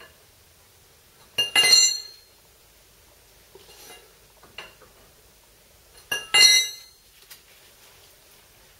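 Two sharp metallic clinks, each ringing briefly, about four and a half seconds apart, with a few faint clicks between: a steel socket and ratchet knocking on the front hub and bearing nut of a VW T25/T3 bus while the bearing nut is backed off to set the bearing preload.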